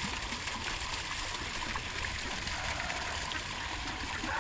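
Garden hose running, its water splashing steadily into standing water.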